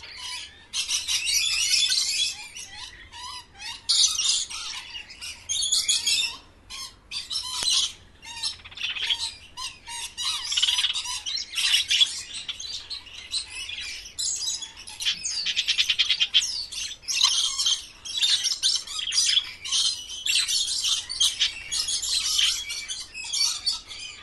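Parrots chattering: a dense run of shrill chirps and squawks in short bursts, with a rapid buzzy trill about two-thirds of the way through.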